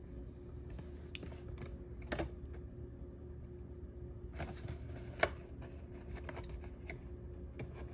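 Scattered light clicks and taps of foil card packs being handled and shuffled in a cardboard box, with a few sharper clicks about two seconds in and around five seconds in, over a faint steady hum.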